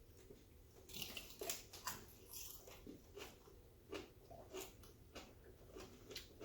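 Faint chewing and biting of baked chicken, a scatter of irregular soft clicks and crackles from the mouth.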